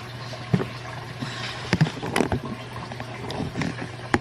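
Scattered knocks and clunks from a boxed item being handled, over a steady low hum.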